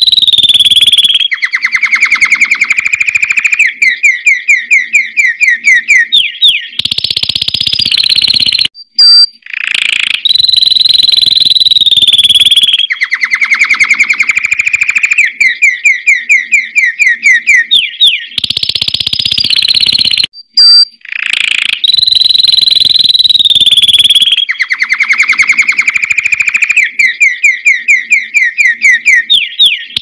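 Red-factor canary singing loudly: long held whistles alternating with rapid rolling trills of evenly spaced notes, the same run of phrases coming round about every ten seconds, with two brief breaks.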